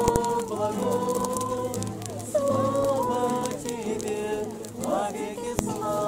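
A group of voices singing a Russian hymn together to an acoustic guitar, the sung notes held and sliding from one to the next.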